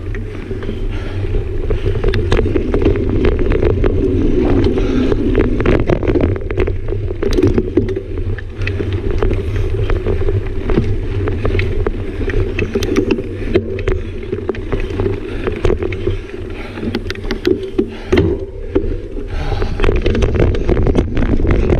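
Mountain bike riding fast on a sandy dirt singletrack: a steady rush of wind buffeting the camera microphone over the rolling of knobby tyres, with frequent sharp clicks and rattles from the bike jolting over bumps.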